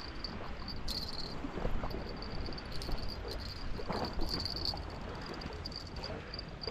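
A steady, high-pitched insect-like chirring with uneven pulses, over a low steady rumble, with a few faint knocks.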